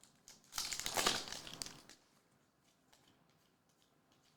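Foil trading-card pack wrapper crinkling for about a second and a half as it is handled and opened.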